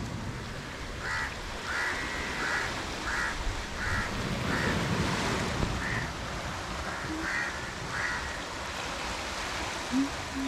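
A bird calling in a run of short, evenly spaced calls over the steady wash of sea surf.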